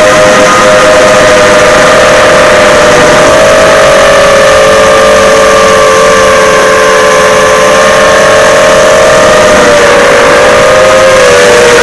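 FPV quadcopter's brushless motors and propellers whining loudly, recorded by the action camera on the drone itself: several close steady tones beating against each other over a hiss of prop wash. The tones waver and bend in pitch near the end.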